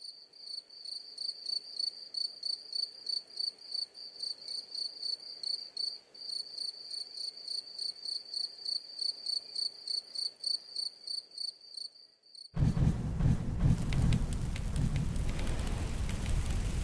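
A cricket chirping steadily, a thin high pulse at about four chirps a second. About twelve and a half seconds in it cuts off and a much louder, dense crackling and rushing noise of big burning torches takes over.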